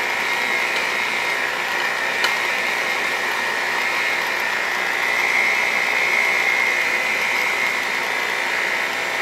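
Cuisinart seven-speed electric hand mixer running steadily, its beaters whirring through buttercream frosting in a glass bowl, with a single small click about two seconds in.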